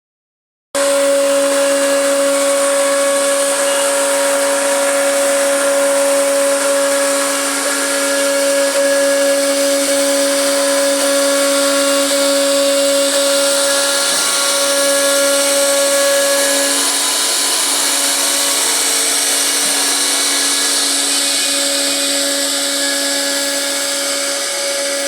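CNC router spindle running with a steady whine while it carves wood, with a hiss from the cut. The sound starts abruptly after a moment of silence under a second in.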